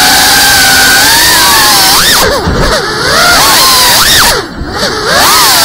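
GEPRC CineLog 35 cinewhoop quadcopter's brushless motors and propellers whining, the pitch swooping up and down with the throttle over a steady hiss. The whine drops away briefly twice.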